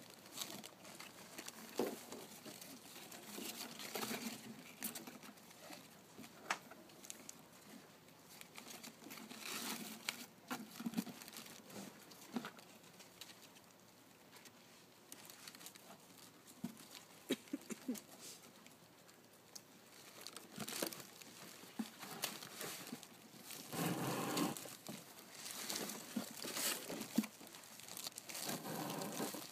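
Plastic flower sleeves crinkling and rustling as bunches of hydrangeas are handled and packed into a cardboard box, with scattered light taps and clicks. The rustling gets busier and louder near the end.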